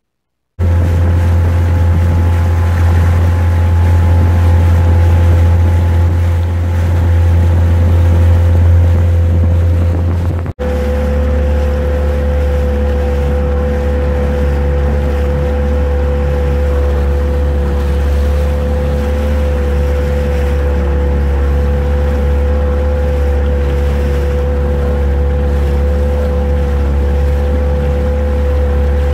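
Outboard motor of a small speedboat running steadily, with water and wind noise on the microphone. After a brief dropout about ten seconds in, the engine runs on with a slightly lower, steady note.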